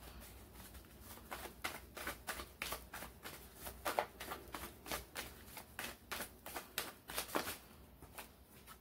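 A deck of tarot cards being shuffled by hand: a run of soft, irregular card clicks and flicks that stops near the end.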